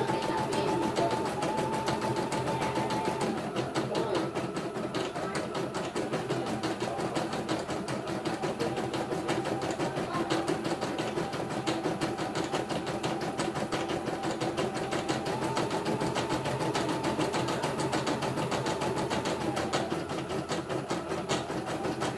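CNY E900 computerized embroidery machine stitching a design: a fast, steady needle clatter as the hoop carriage moves the fabric, with a motor whine that rises and falls in pitch a few times.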